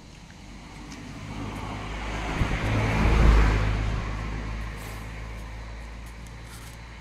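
A motor vehicle passing by, its engine and tyre noise swelling to a peak about three seconds in and then fading away.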